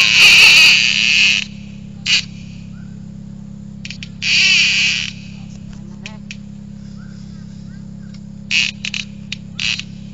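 Spinning-reel drag buzzing in bursts as a hooked fish pulls line off the bent rod: one long run at the start, a short one about two seconds in, another of about a second midway, and several short spurts near the end.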